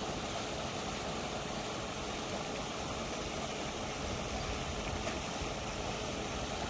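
Steady churning-water noise and a faint low hum from a paddlewheel aerator running on a fishing pond.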